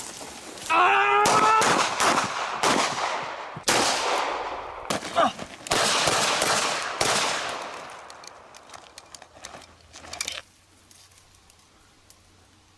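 Gunfire: a rapid string of shots lasting several seconds, with a brief yell near the start, thinning into scattered clicks before it cuts off abruptly.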